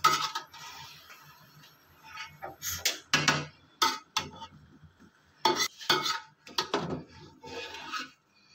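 Metal spoon clanking and scraping against the sides of a large metal cooking pot as steamed biryani is mixed and turned, in an irregular run of about ten knocks.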